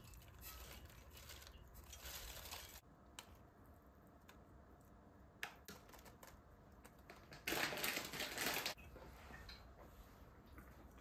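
Faint rustling and light clicks of a salad being put together: toasted flaked almonds tipped from a pan onto rocket leaves in a glass bowl, with a louder burst of rustling lasting about a second past the middle.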